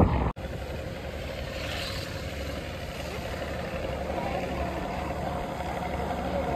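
A motorised boat's engine running steadily: a low drone with a faint steady hum above it, starting abruptly after a brief gap just after the start.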